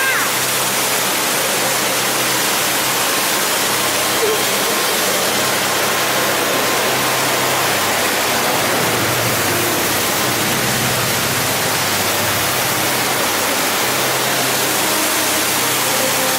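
Ruby Falls, a waterfall inside a cave, pouring steadily: a loud, even rush of falling water.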